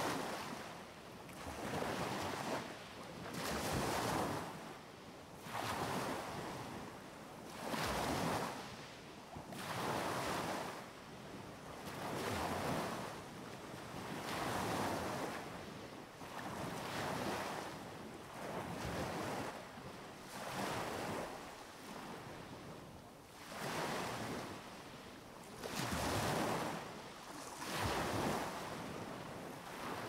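Small sea waves breaking and washing up the beach, one surge about every two seconds.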